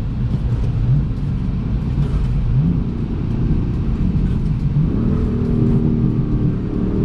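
Car engine and road noise heard while driving, the engine note rising a few times as the car accelerates.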